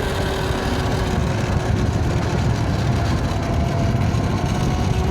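Riding noise from a YOZMA IN10 Pro electric dirt bike: a steady low rumble of wind on the microphone and the tyres, with a faint whine from the electric motor. The whine fades about two seconds in and begins to rise again near the end.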